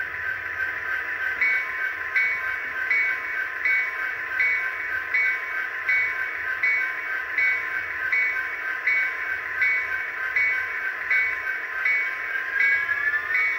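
Sound-decoder diesel locomotive sound from an HO scale model NS GP60 (Soundtraxx Tsunami) coming through a small onboard speaker: a steady idle hum with a bell ringing about once every 0.7 s. Near the end the engine sound rises in pitch as it revs up to pull away.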